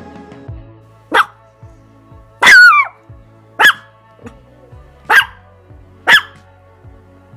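Long-haired chihuahua barking: five sharp, single yaps spaced about a second apart, the second one drawn out and falling in pitch.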